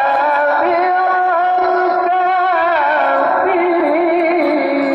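Singing: a slow, ornamented melody with long held, wavering notes that slide from pitch to pitch, with no clear beat.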